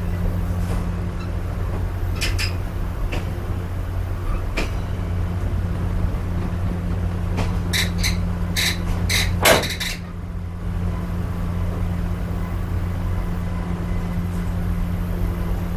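Railroad passenger coach in motion, heard from its open vestibule: a steady low rumble, with scattered sharp metallic clicks and knocks. About halfway through comes a quick run of sharp clicks, the loudest near the end of the run.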